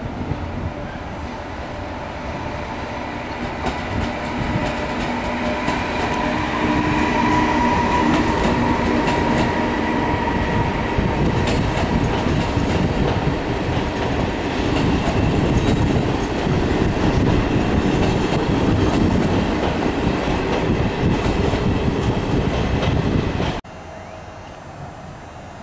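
A train running past on the rails, growing louder over the first few seconds, with a steady whine above the rumble and short clicks from the wheels. The sound cuts off suddenly about two seconds before the end.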